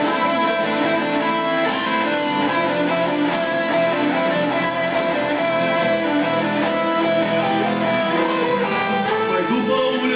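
Guitars playing an instrumental passage of a song, strummed chords under sustained notes at a steady level.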